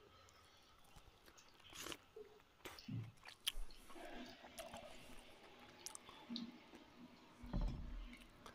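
Close-up mouth sounds of a man eating rice and curry by hand: irregular chewing with sharp clicks and crunches.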